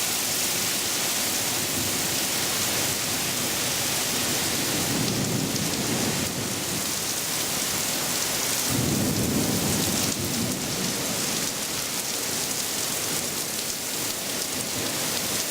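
Steady heavy rain, with two low rolls of thunder: one about five seconds in and a stronger one around nine seconds in.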